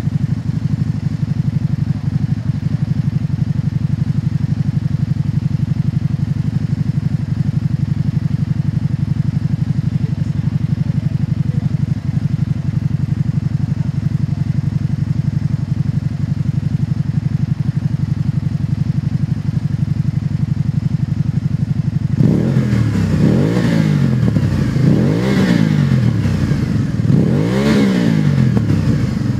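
2013 Can-Am Spyder RS-S's Rotax V-twin idling steadily through a Two Brothers Racing dual slip-on exhaust. Near the end it is revved three times, each rev rising and falling back to idle.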